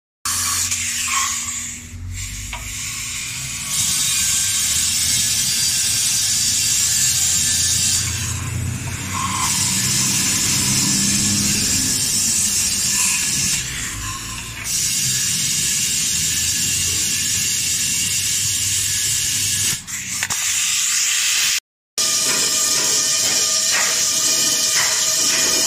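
Compressed air hissing loudly out of an opened drain valve on a Mercedes-Benz Actros truck's air brake tank, blowing out the water that had collected in the tank. The hiss is steady and eases briefly a few times. It cuts off about 22 seconds in, and music follows.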